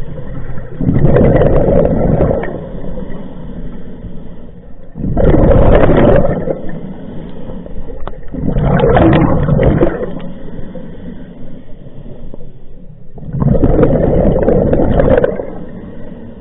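Scuba diver breathing through a regulator underwater: four loud bursts of exhaled bubbles, one about every four seconds, with a fainter hiss between them.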